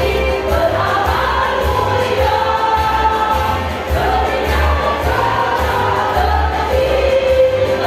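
Women's choir singing together, holding long sustained notes that change pitch every second or two.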